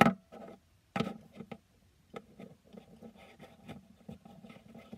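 Littlest Pet Shop plastic figurine being spun and hopped on a wooden desk: a run of light taps and scuffs, with a louder knock at the start and another about a second in.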